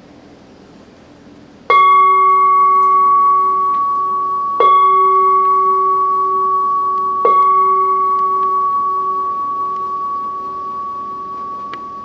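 Large bronze standing bell-bowl struck three times, about three seconds apart. Each strike rings on as a steady tone with a few higher overtones and fades slowly; the last ring is cut off suddenly near the end.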